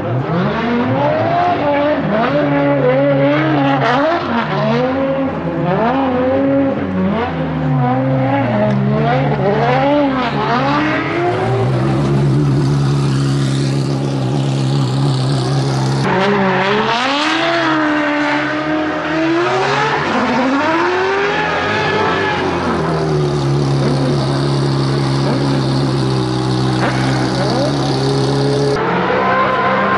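Drift car's engine revving hard and dropping back again and again, its pitch sweeping up and down continuously. A hiss of sliding tyres joins it through the middle and again near the end.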